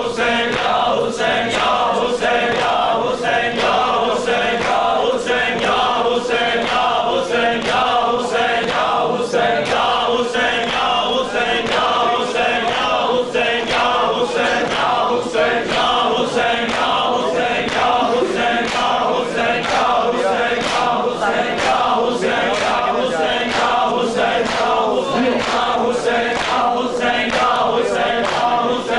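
A group of men chants a noha, a Shia mourning lament, in chorus behind a lead reciter. Rhythmic hand-slaps on bare chests (matam) keep the beat throughout.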